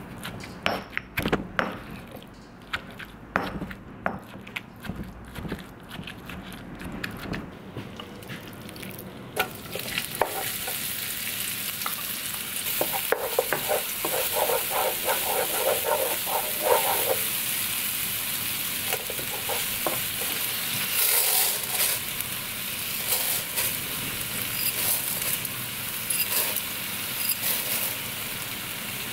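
A stone pestle pounding garlic, ginger and onion in a stone mortar, a run of sharp knocks. About nine seconds in it changes to the paste sizzling in hot oil in a wok, stirred with a wooden spatula.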